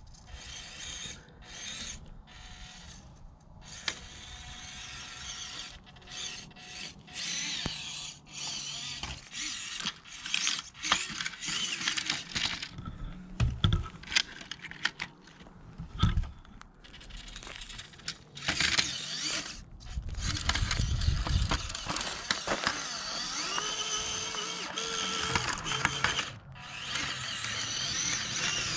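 Orlandoo 1/32 Toyota Tundra micro RC crawler driving over rocks and gravel: its small brushed gear motor and drivetrain whining, rising and falling in pitch with the throttle, mixed with clicks and knocks of the tyres and body on the stones.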